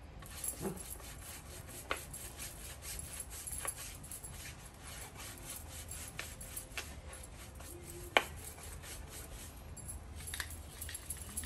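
Round wax brush rubbing white wax onto stained wooden boards and swirling in the wax tin, a soft repeated scrubbing of bristles. A few light taps, with one sharp click about eight seconds in.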